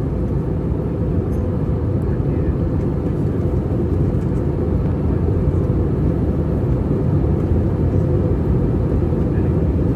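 Steady cabin noise inside an Airbus A320-232 in descent: the drone of its IAE V2500 engines mixed with airflow rush. It is an even low rumble that does not change.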